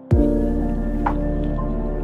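Music: a deep kick drum that drops in pitch sounds once at the start, over a steady held chord with a light percussive tick about a second in.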